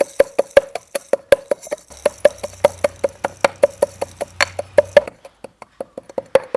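Black peppercorns being pounded coarsely by hand in a mortar with a pestle: quick, even knocks about five a second, each with a short ringing tone. The strokes go lighter for a moment about five seconds in.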